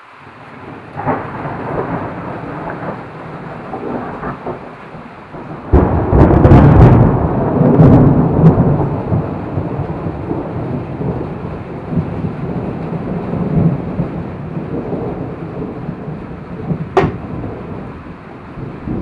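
Thunder: a long rolling peal that builds over the first few seconds, breaks into its loudest clap about six seconds in, then rumbles on and slowly fades. A sharp click near the end.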